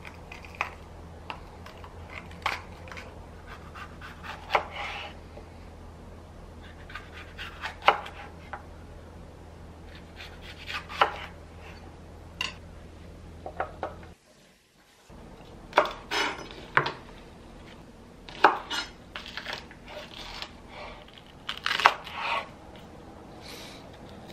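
Chef's knife slicing through red bell pepper and green chili peppers and knocking on a wooden cutting board, in irregular cuts. After a short break near the middle the cuts come in quicker clusters. A low steady hum runs under the first half.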